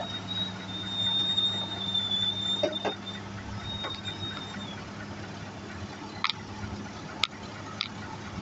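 Heavy diesel engine running steadily at a low idle, with a thin high-pitched whine that stops a little past halfway and a few sharp metallic clicks near the end.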